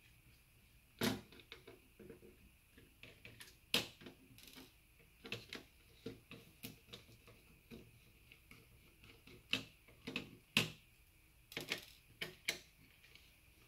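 Irregular light clicks and knocks of a small screwdriver and the gel blaster rifle's parts being handled while its small self-tapping screws are taken out. The sharpest knocks come about a second in, near four seconds and near eleven seconds.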